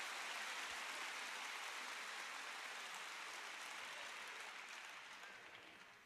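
A large audience applauding, the clapping fading away over the last couple of seconds.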